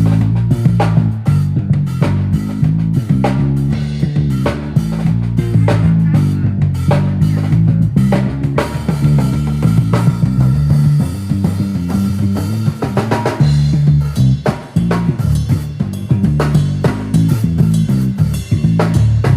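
A drum kit and an electric bass guitar playing a groove together: kick, snare and rimshot hits at a steady tempo over a moving bass line, with a brief drop-out about three-quarters of the way in.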